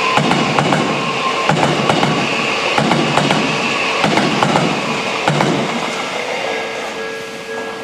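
Odakyu 70000 series (GSE) Romancecar electric train passing over a level crossing. Its wheels clatter over rail joints in surges about every second and a quarter, with sharp clicks, while the crossing's warning bell rings on. The wheel noise stops about five and a half seconds in as the last car clears, leaving the bell.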